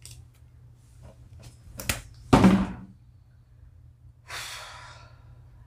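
A person breathing, with a few small clicks and taps, a short louder noise about two and a half seconds in, and a breathy sigh near the end, over a low steady hum.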